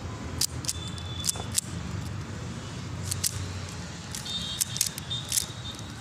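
3x3 Rubik's cube being turned quickly in the hands during a speed solve, its plastic layers clicking in quick irregular clacks over a steady low hum.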